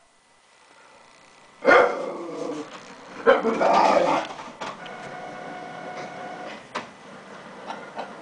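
Jack Russell terrier barking, with one sharp bark a little under two seconds in and a longer run of barks about three and a half seconds in. After that comes a steady mechanical whine with a few clicks.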